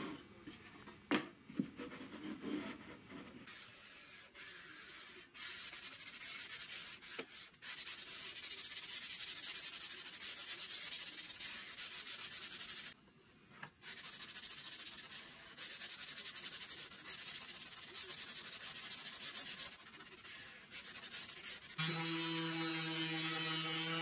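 Sandpaper rubbed by hand over a solid walnut frame-and-panel board, in hissing stretches of a few seconds with short pauses between them, after a few wooden knocks in the first seconds. About two seconds before the end a random orbital sander starts and runs with a steady hum.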